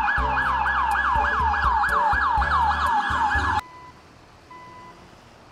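Electronic police siren from a battery-powered toy police car: a fast falling yelp repeating about four times a second, which cuts off suddenly about three and a half seconds in. Faint short beeps follow.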